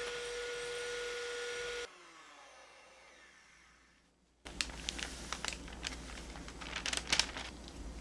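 Electric hand mixer whipping eggs at high speed with a steady whine that cuts off about two seconds in. By then the eggs are whipped to a thick, pale foam for a sponge cake. From about halfway, a run of light clicks and scrapes in the glass bowl as sifted flour goes in and a spatula starts folding it.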